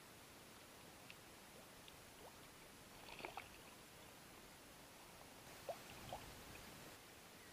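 Near silence, with faint water lapping and a few small faint clicks, a cluster about three seconds in and two more near the end.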